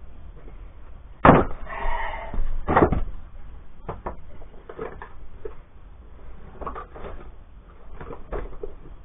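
Heavy toolboxes being handled and set down on a shower tray as weights: a loud knock about a second in, a rattle, a second loud knock, then lighter knocks and bumps as a parts-organiser box is settled on top.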